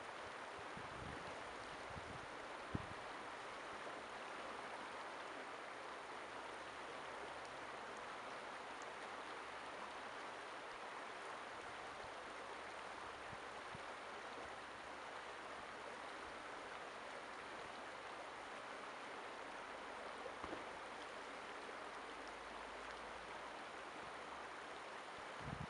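Shallow creek water rushing steadily over rocks between snow and ice banks, an even hiss, with one brief low thump about three seconds in.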